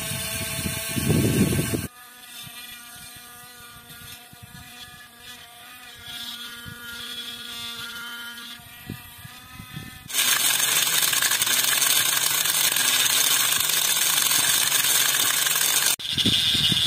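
Small electric motor of a toy borewell drilling rig running as it turns the drill rod in a water-filled hole: a steady whine, then louder and hissier from about ten seconds in.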